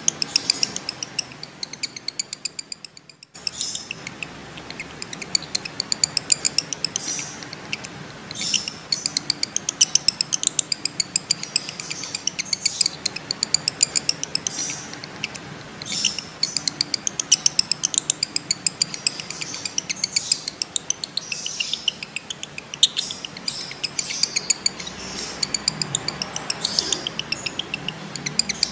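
Male lovebird in breeding condition chattering in a long run of rapid, high-pitched chirps, with a short break about three seconds in.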